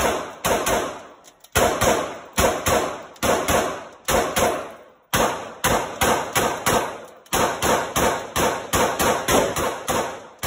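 Glock 19X 9mm pistol fired in quick strings of shots, about two to three a second, with short pauses between strings. Each report echoes off the walls of an indoor range lane.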